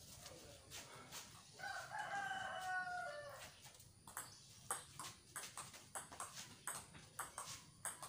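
A rooster crows once, a single long call a little under two seconds long that starts about a second and a half in. From about halfway on, a table tennis rally: the ball clicks sharply back and forth off bats and table at about two to three hits a second.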